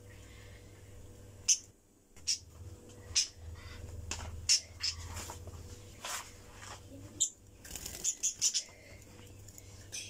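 Pet budgerigars chirping in short, sharp high calls about once a second, with a quick run of three or four near the end.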